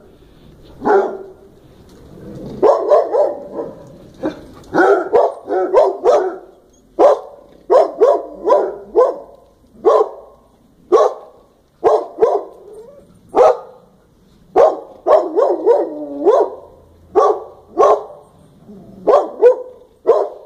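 Dog barking: short, sharp barks repeated about once a second, sometimes two or three in quick succession.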